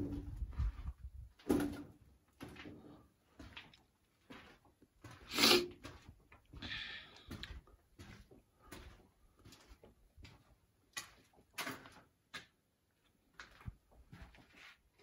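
Footsteps scuffing and crunching over rubble on a tunnel's concrete floor, in an uneven walking rhythm. A few louder knocks stand out, the loudest about five and a half seconds in, and there is a short scrape about seven seconds in.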